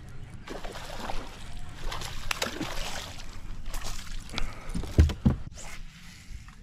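Hooked bass thrashing and splashing at the water's surface beside the boat while being fought on a bent rod, then two heavy low thumps about five seconds in.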